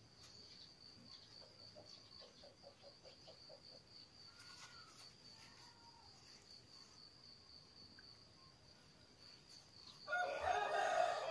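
A rooster crows once near the end, for about a second and a half, over a steady high-pitched whine.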